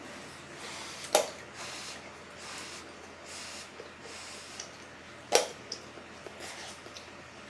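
Eating sounds from a person working through very spicy noodles: breathy sniffing and slurping, broken by two sharp clicks, one about a second in and one about five seconds in.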